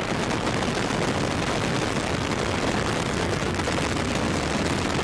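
Long March 5 rocket at liftoff and early climb, its hydrogen-oxygen core engines and kerosene-oxygen booster engines giving a steady, loud, crackling rumble.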